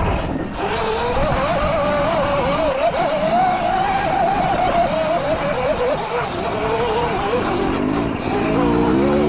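Sur-Ron electric dirt bike motor whining under way, its pitch rising and falling with speed, over wind and ride rattle. Near the end a second, lower tone rises in steps.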